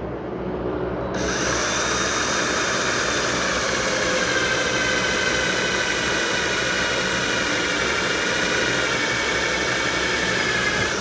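Electric drill running steadily for about ten seconds, starting and stopping abruptly, its whine sagging slightly in pitch as it works under load.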